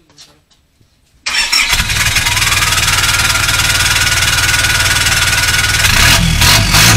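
Isuzu D-Max's 2.5-litre 4JA1 four-cylinder diesel, through a straight-piped exhaust, cranks and fires about a second in and settles straight into a loud, steady idle. Near the end the note starts to rise and fall unevenly as the throttle is blipped.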